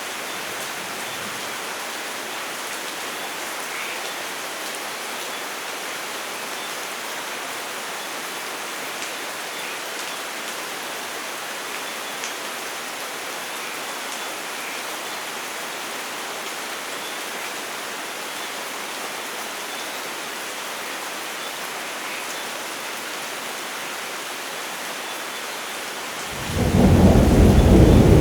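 Steady, even rain hiss, with a loud low thunder rumble breaking in near the end.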